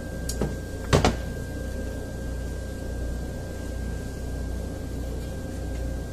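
A few light clicks, then a sharp double knock about a second in as the aluminium 545RFE transmission valve body with its solenoid pack is set down on the workbench. A steady low hum with a thin high tone runs underneath.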